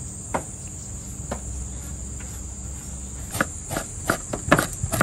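Kitchen knife cutting into a long eel on a wooden cutting board: a couple of single knocks at first, then from about three seconds in a quick run of knife strikes on the board.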